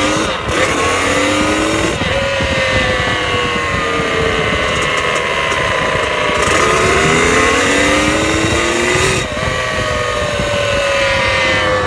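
Two-stroke dirt bike engine revved up and let back down in long, slow sweeps of pitch, with a sudden change about nine seconds in. It is the weird noise the owner hears after revving, a whine that he thinks could come from a cracked pipe, bad seals or a top end needing a rebuild.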